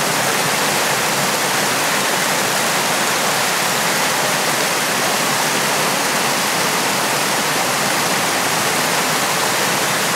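Small creek waterfall splashing, a steady, even rush of falling water.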